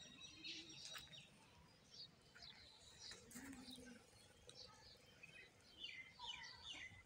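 Faint birds chirping, with a quick run of repeated falling chirps near the end.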